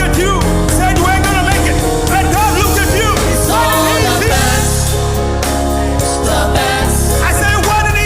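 Loud live gospel praise band music with a steady bass line and a wavering, ornamented lead melody above it.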